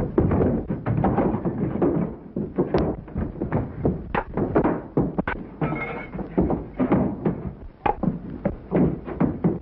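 Fistfight sound effects: a rapid, continuous run of punches, thuds and scuffling bodies, with several sharper smacks standing out.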